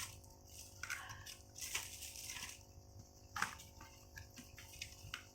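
Bottles being picked up and set down: scattered light clicks and knocks, with one sharper knock about three and a half seconds in.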